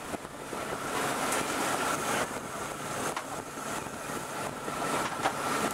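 Motorboat under way: a steady engine drone with a faint whine, mixed with the rush of wind and water.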